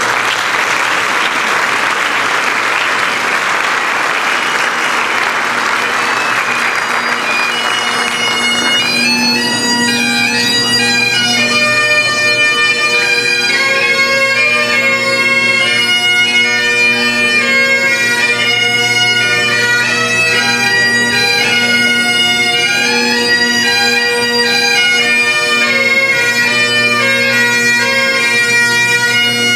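Audience applause that dies away about nine seconds in, leaving bagpipes playing a tune over steady low drones.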